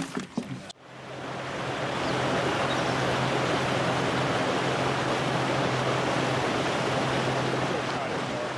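A fishing boat running at speed on the river: a steady rush of wind and water over a steady low motor hum, fading in about a second in.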